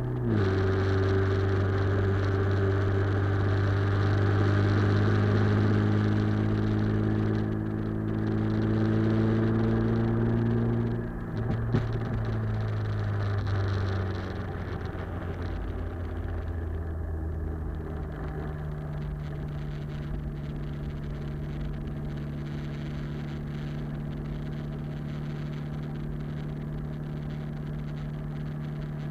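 Mitsubishi Lancer Evo X's turbocharged four-cylinder heard at the tail through a 3-inch Scorpion turbo-back exhaust with the catalyst removed, picked up by a microphone at the rear bumper. The engine note drops in pitch at the start and again about eleven seconds in, with a single click. It then settles into a quieter, steady drone.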